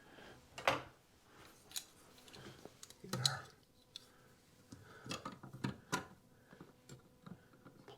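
Scattered light clicks and taps of metal and plastic faucet parts being handled and fitted together during reassembly of a Delta faucet.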